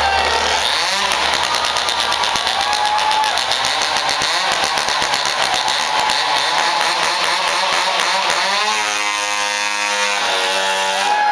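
A two-stroke chainsaw played as an instrument on stage, running loud and revved up and down so its pitch rises and falls, heard through the concert sound.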